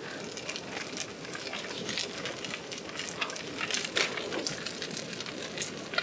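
Fried rice with beef and vegetables sizzling and crackling in a hot pan over a portable gas burner turned up high, a dense stream of irregular crackles.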